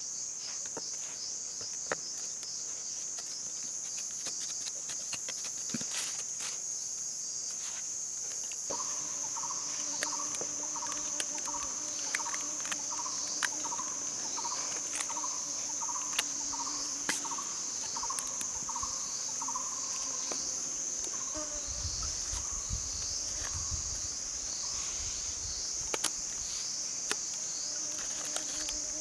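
Steady high-pitched drone of insects, with a lower chirp repeated about twice a second from about nine seconds in until about twenty-one seconds. Scattered faint clicks and taps of sticks being handled.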